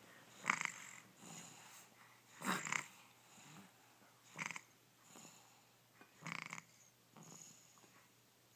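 A baby snoring in her sleep: four short snores about two seconds apart, with softer breaths between them.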